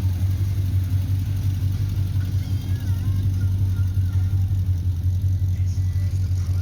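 Car engine idling nearby with a deep, steady rumble.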